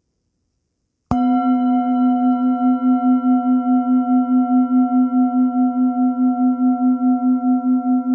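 Singing bowl struck once about a second in, then ringing on with a low, steady tone and several higher overtones, its loudness wavering about four times a second.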